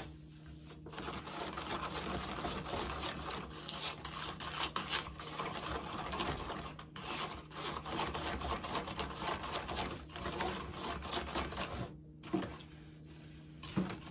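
Wet Quikrete concrete mix being stirred in a plastic cup, a rapid gritty scraping that stops about twelve seconds in.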